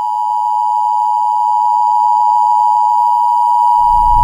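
Loud, steady electronic tone near 1 kHz: the attention tone of a mock Emergency Alert System broadcast. A low noise joins under it near the end.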